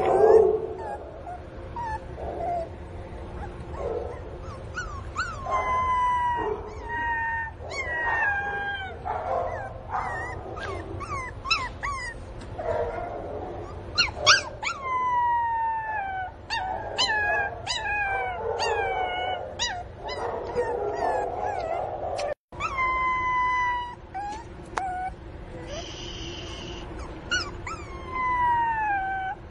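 Pinscher puppy crying: many short, high-pitched whimpers and yelps that slide down in pitch, coming in quick runs one after another. The crying is taken by its owner as the puppy missing its mother.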